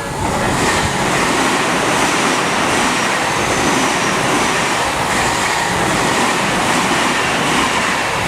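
Tobu 50050 series electric train passing over a level crossing: a loud, steady rush of wheel and rail noise, with a faint high whine falling slowly in pitch.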